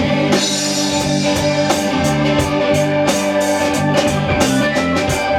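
Live rock band playing an instrumental passage between vocal lines: guitars and a drum kit keeping a steady beat.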